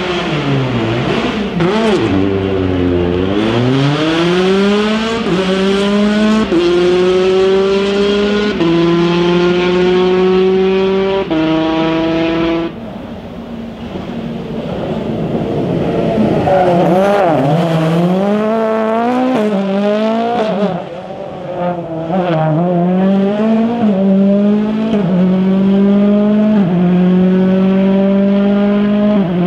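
Rally car engine accelerating hard through the gears: the pitch climbs and drops sharply at each upshift. Partway through, the sound drops back. It then returns with the revs rising and falling unevenly before the car pulls up through the gears again.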